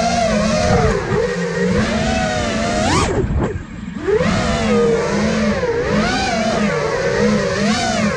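Electric motors and propellers of an iFlight Nazgul Evoque 5-inch freestyle FPV quadcopter whining, their pitch rising and falling with the throttle. About three seconds in the pitch climbs sharply, then drops for about a second as the throttle is chopped, before rising again.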